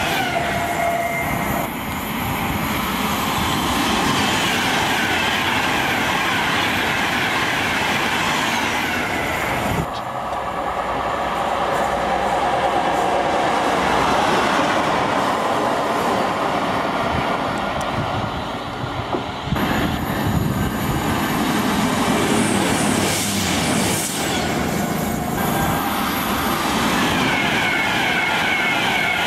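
Passing trains in several cut-together clips: Virgin Class 390 Pendolino electric trains running past, wheels rumbling and clattering over the rails. The middle part comes from a DRS Class 57 diesel locomotive.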